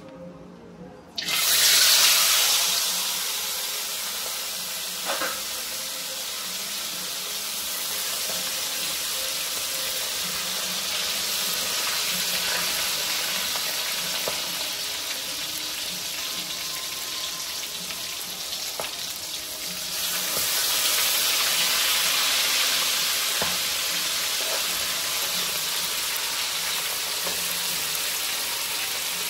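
Food sizzling in hot cooking oil, starting suddenly about a second in as it goes into the pan, then settling to a steady sizzle that grows louder again about two-thirds of the way through.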